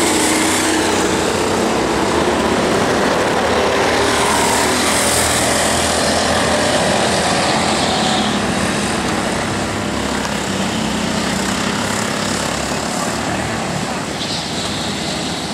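Several go-kart engines running on the track, a steady drone whose pitch rises and falls as the karts accelerate and pass.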